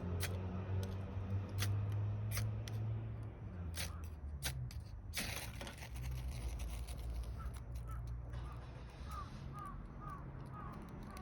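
Wood fire crackling in a small fire pit: irregular sharp pops and snaps, with a louder pop about five seconds in, over a low steady hum. In the second half a bird gives a short series of about seven small chirps.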